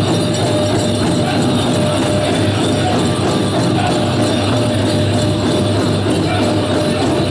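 Pow wow drum group playing a chicken dance song on a big drum, with the dancers' leg bells jingling in time.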